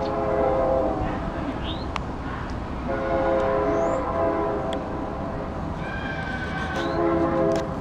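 Locomotive air horn on a BNSF coal train sounding three blasts: one at the start, a longer one about three seconds in, and a shorter one near the end. Each blast is a steady chord of several notes.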